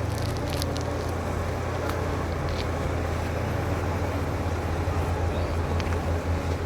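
Bulldozer's diesel engine running steadily at a low hum, with a few short clicks over it.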